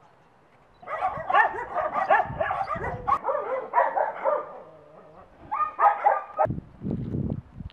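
Many shelter dogs barking at once in an overlapping chorus. It starts about a second in, drops away briefly, and bursts up again near the end.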